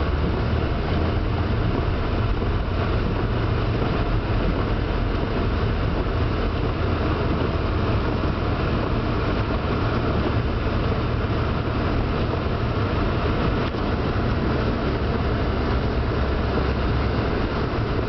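Vehicle driving on a snow-covered road, heard from inside the cabin: a steady low rumble of engine and tyres with a hiss over it.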